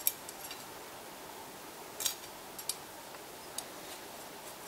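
Small metal parts of a Biax power scraper clicking and tapping lightly as they are handled and fitted together by hand: a handful of separate sharp clicks, the strongest about two seconds in.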